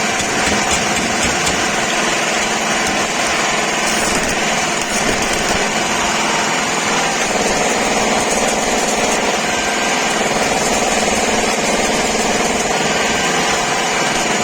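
Small petrol engine generator running steadily at a constant speed.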